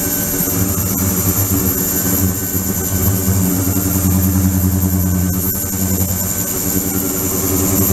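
A 72 kHz, 300 W ultrasonic tank running: a steady hum with a high, constant whine above it.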